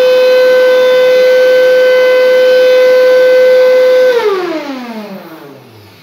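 Electrolux canister vacuum cleaner's motor running at full speed with a steady high whine, then switched off about four seconds in, its pitch falling as the motor spins down. Its sound has returned to normal after the safety flap, which locked when the vacuum fell, was freed.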